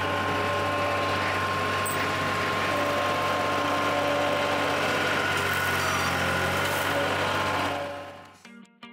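Farm vehicle engine running steadily at an even pitch, fading out near the end as plucked guitar music comes in.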